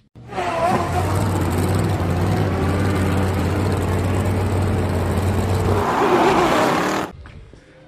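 Car engine sound effect under a title card: a loud, steady engine note with a brief rise near the end, then it cuts off suddenly.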